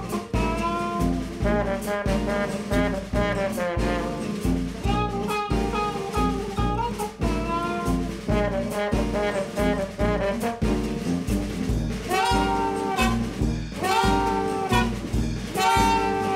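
Jazzy music with horns over a steady bass beat.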